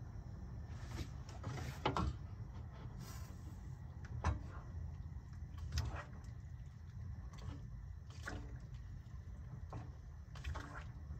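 A spoon stirring soup in a stainless steel pot, knocking and scraping against the pot now and then, about once every second or two. A steady low hum runs underneath.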